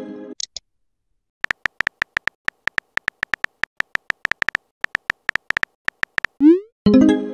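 Texting-app sound effects: a run of quick keyboard-tap clicks, each with a faint beep, for about four seconds as a message is typed. Near the end comes a rising swoop and a chime as the message is sent. The fading tail of an earlier chime is heard at the start.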